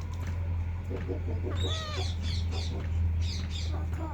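Pet parrot calling: a run of shrill, harsh screeches, several a second, starting about one and a half seconds in, over a steady low hum.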